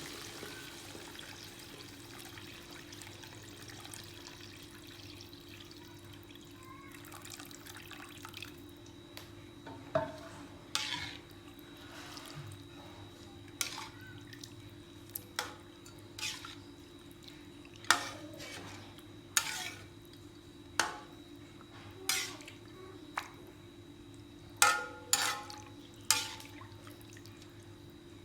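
Water splashing in a cooking pot, about a dozen separate sharp splashes at irregular intervals over a steady low hum.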